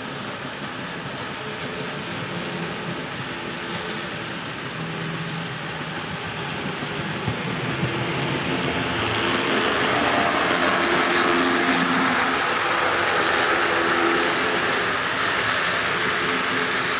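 Model train running on a layout track: a model GP38 diesel locomotive and a string of boxcars rolling over the rails, with a steady hum underneath. The rolling noise grows louder about halfway through as the train comes past close by.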